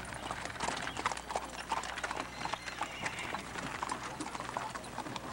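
Horses' hooves clip-clopping on the road, many irregular, overlapping strikes from more than one horse.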